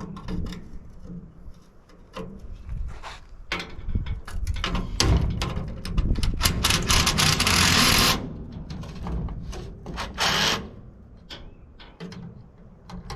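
Metal parts of a golf cart charger clanking, clicking and scraping as it is pried and pulled apart by hand. A louder, continuous rasping scrape runs for about a second and a half near the middle, and a shorter one comes a couple of seconds later.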